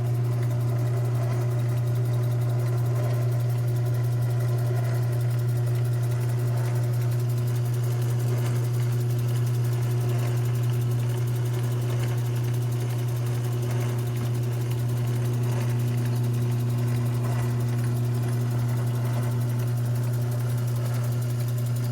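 Modified mini lathe running steadily with a loud, even motor hum. A second, higher hum joins about fifteen seconds in.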